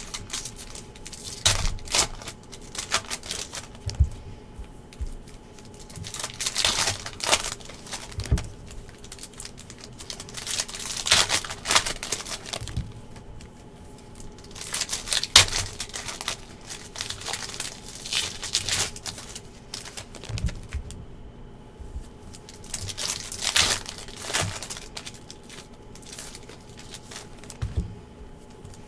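Foil football trading-card packs being torn open and crinkled by hand, in irregular bursts of crackling, with loose cards handled in between.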